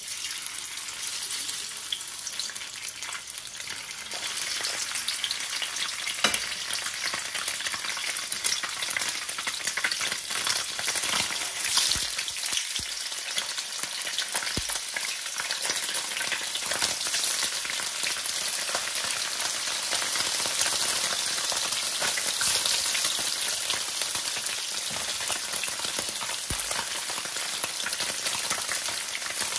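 Slices of tofu sizzling in hot oil in a wok. The sizzle starts abruptly as the first slice goes in and grows louder as more slices are laid in, with a few knocks of metal tongs against the pan.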